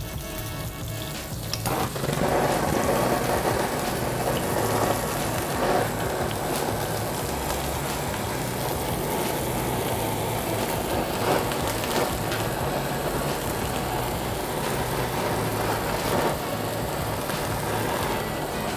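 A langoustine tail sizzling in a hot steel frying pan; about two seconds in a handheld gas blowtorch lights and its flame then hisses steadily as it sears the tail.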